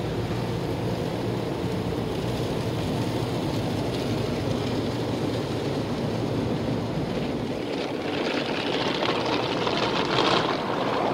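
Automatic car wash heard from inside the car's cabin: a steady rumble of wash machinery and water beating on the car body. A louder hiss of spray builds from about eight seconds in.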